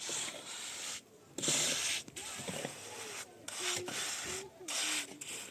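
Rasping, rubbing strokes made by hand work, several in a row with short pauses between them.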